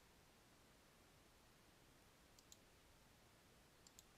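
Near silence broken by a few faint computer mouse clicks, a pair just past halfway and another pair near the end, as the settings are clicked in the program.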